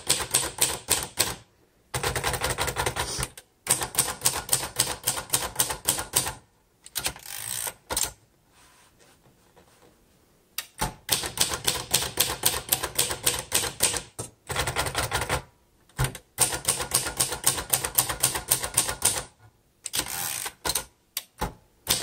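1956 Royal Quiet De Luxe manual typewriter being typed on: quick runs of key strikes, each typebar clacking against the platen, broken by several short pauses and one longer pause near the middle.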